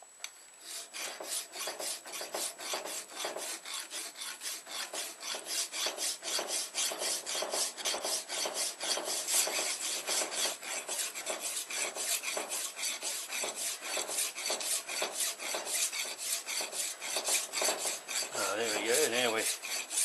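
Hand file rasping across a steel knife blade clamped in a vise, in quick, even strokes of about three a second.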